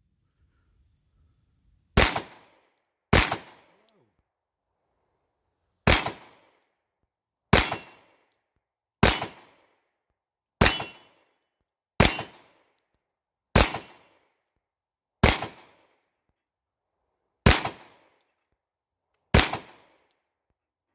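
Sarsilmaz B6 9mm pistol fired eleven times in slow, deliberate single shots, about one every one and a half to two seconds, starting about two seconds in. After a few of the shots comes a short high ring from the steel plate targets being hit.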